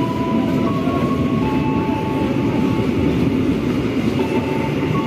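Freight train of container flat wagons rolling past at close range: a steady rumble of wheels on the rails, with thin whining tones that come and go.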